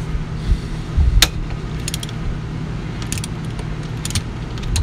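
Ratchet wrench clicking in short runs, about once a second, as its socket works the 3/4-inch hold-down bolts of a Jacobs engine brake on a Detroit Diesel 6V92, with light metal clinks. A steady low hum runs underneath.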